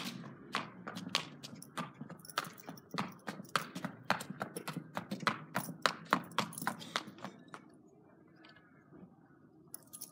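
A horse's hooves clip-clopping on a hard concrete yard at a steady walk, stopping about seven and a half seconds in as the horse halts.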